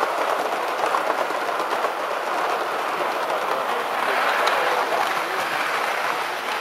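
Model train running along layout track, a steady rattle of wheels on the rails with light clicking over the rail joints and points. It grows a little louder about four seconds in.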